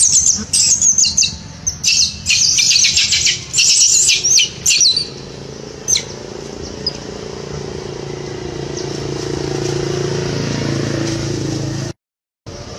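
Young macaques squealing in rapid high-pitched bursts for about five seconds. After that a steady low engine hum slowly grows louder until it cuts off near the end.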